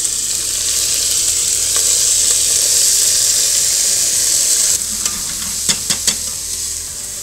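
Soaked basmati rice sizzling in hot ghee in a stainless steel saucepan as it is stirred with a metal spoon. The loud sizzle eases about two-thirds of the way in, and a few sharp clicks of the spoon against the pan follow.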